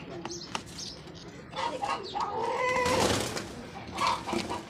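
Plastic crate rubbing and scraping as it is handled, loudest about three seconds in, with birds calling in the background.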